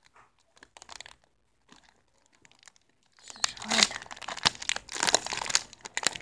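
Foil Pokémon card booster pack crinkling as it is handled and opened by hand: a few faint rustles at first, then loud, crackly crinkling from about three seconds in.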